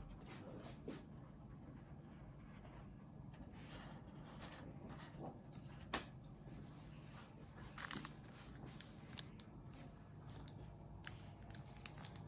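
Quiet handling noises: faint rustles and scattered light clicks over a low steady hum, with one sharper click about halfway through, a brief rustle shortly after and another click near the end.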